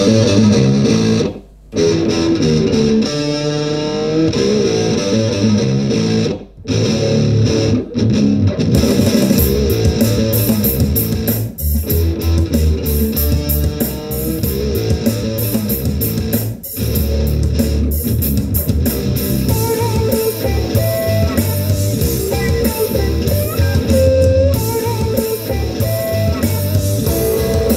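Guitar music played loudly through a pair of Edifier G2000 small desktop gaming speakers in music mode, measuring about 91 decibels at 30 centimetres. It is picked up by a microphone in the room, and the music drops out briefly a few times.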